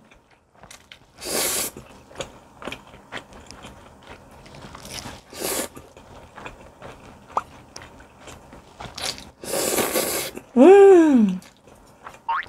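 A person slurping spicy chewy jjolmyeon noodles up from chopsticks, in three long slurps: about a second in, in the middle, and near the end. Wet chewing clicks fill the gaps, and a short hummed 'mm' that rises and falls comes just after the last slurp.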